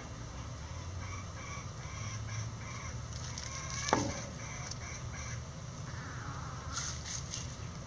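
Bantam chickens foraging in dry leaf litter. A run of quick, faint chirps is heard, then about four seconds in one short, sharp call drops steeply in pitch. Near the end there is a brief rustle of scratching in the leaves.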